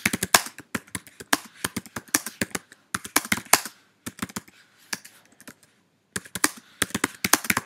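Typing on a computer keyboard: quick runs of key clicks, thinning out for a couple of seconds past the middle before a fast run starts again.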